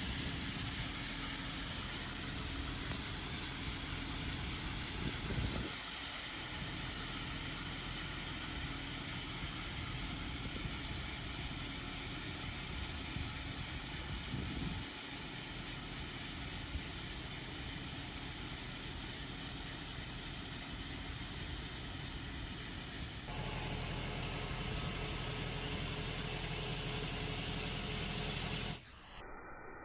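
Tractor-mounted Kadıoğlu KCP80 rotary steel-wire brush scrubbing along a curb and asphalt gutter: a steady hiss of wire bristles over the hum of the tractor's engine. The sound changes abruptly about 23 seconds in and cuts off suddenly near the end.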